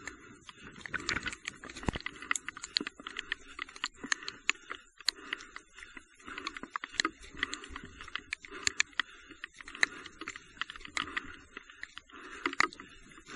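Raindrops tapping irregularly on the camera in heavy rain, over a soft scuffing about once a second, like footsteps on a wet trail.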